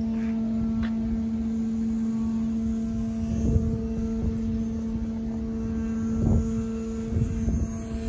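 Steady high hum of a Volantex P-51 RC plane's small electric motor and propeller in flight, over wind buffeting the microphone, which swells in gusts about three and a half, six and seven seconds in.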